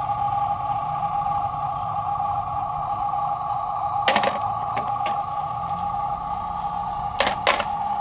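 Small objects dropped into the plastic tipper bed of a toy RC dump truck, giving a few sharp clicks and knocks about four seconds in and two more near the end, over a steady high two-note hum.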